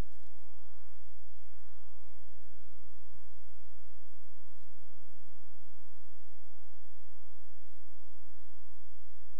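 Steady electrical hum with a dense stack of overtones, strongest at the low end, unchanging in level.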